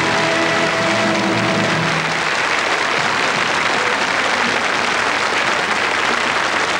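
Large audience applauding steadily, with the last held chord of the orchestra and choir dying away under it in the first two seconds.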